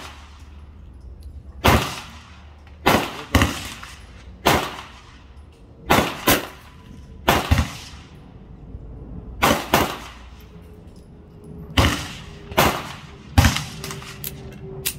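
Gunshots: about a dozen sharp single reports at irregular intervals, some close pairs less than half a second apart and some gaps of nearly two seconds.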